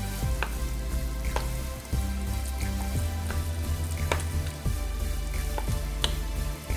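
Wooden spoon stirring a thick, wet mash of grated green plantain and ground peanut in a glass bowl: a crackly wet stirring noise, with scattered sharp clicks of the spoon against the glass.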